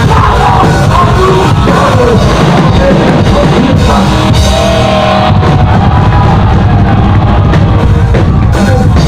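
A rock band playing live at full volume, driven by a drum kit with a heavy bass drum.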